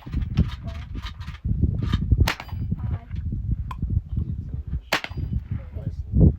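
Scoped rifle fired in a slow series of single shots, one about every two and a half seconds, each a sharp crack, over a low, steady rumble.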